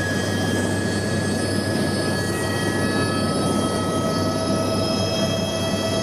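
Turbine helicopter heard from inside the cabin as it lifts off and climbs: steady rotor and engine noise with high whining turbine tones that shift pitch about three seconds in.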